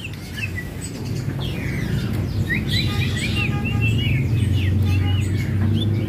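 A caged female green leafbird (cucak ijo) calling in short, quick chirps and whistled notes that rise and fall, coming thicker from about a second and a half in. A steady low hum runs underneath.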